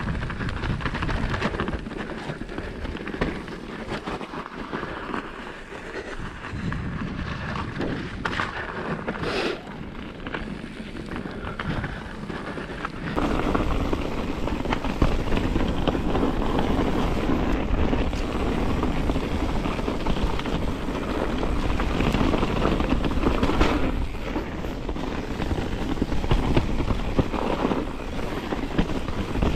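Wind buffeting an action camera's microphone as a mountain bike rolls down a dirt forest trail, with tyre rumble and the knocks and rattle of the bike over bumps. The noise gets louder and denser about halfway through.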